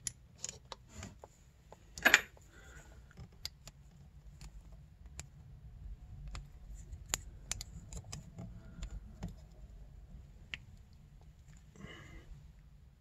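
Faint small metal clicks and scrapes of an open-end wrench on the jam nut of a snowmobile power valve cable adjuster, as the nut is tightened to lock the cable setting. The sharpest click comes about two seconds in.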